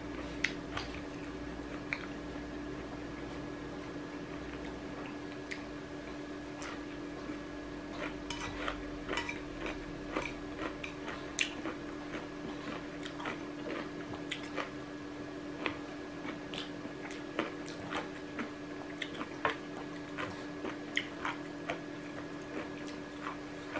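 Eating at a table: a metal spoon clinking and scraping against ceramic bowls as rice and stir-fried chicken are scooped up, with chewing, in short scattered clicks over a steady low hum.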